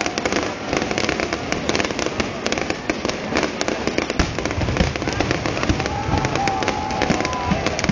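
Fireworks display: dense, rapid crackling and popping with a few deeper booms about four to five seconds in, and a wavering whistle near the end.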